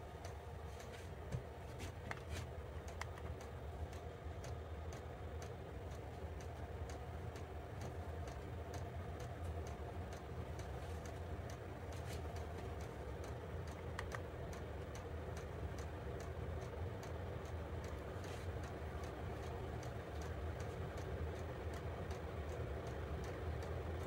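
Vevor 5 kW diesel parking heater running steadily with a constant hum, a light even ticking about twice a second over it, while its glow plug draws around 10 A in the shutdown cycle.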